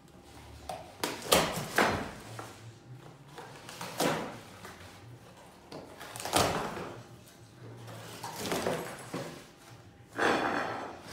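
Caracal tearing and chewing at a cardboard box, shoving it across the floor: a series of irregular rips, crunches and scrapes of cardboard.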